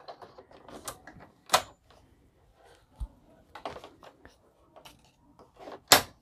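Scattered, irregular clicks and knocks from handling a computerized sewing machine and the towel under its presser foot while the machine is mostly stopped, rather than a steady run of stitching. The loudest clicks come about one and a half seconds in and near the end.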